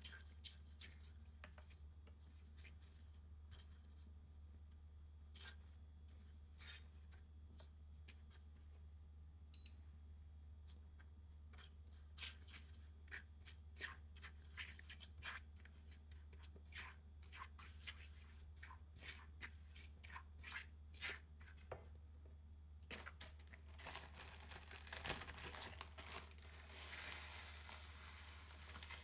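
Silicone spatula scraping and tapping in a nonstick frying pan, stirring melted butter and pumpkin spice in short irregular strokes. About three-quarters of the way through, a plastic zip bag crinkles as graham cracker crumbs pour into the pan. A steady low hum runs underneath.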